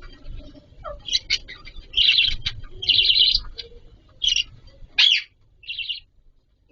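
Budgerigars chirping in a run of short calls, the longest about half a second each.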